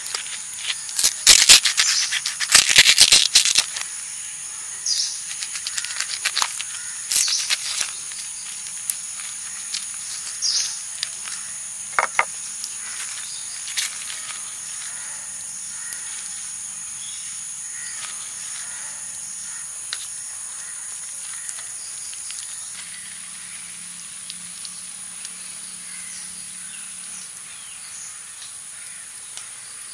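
Crisp rustling and crackling of a banana-leaf wrapping being untied and pulled open, loudest in a burst about one to four seconds in, then a few scattered light rustles, over a steady high insect drone.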